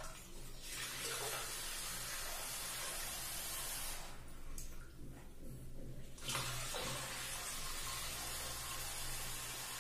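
Water running from a bathroom tap into a large latex balloon stretched over the spout, a steady hiss as the balloon fills. The hiss drops for about two seconds midway, then comes back.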